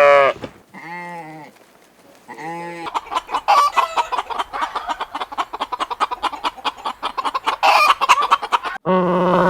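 A few short bleats in the first seconds, then a flock of chickens clucking rapidly and continuously, with a louder call near the end.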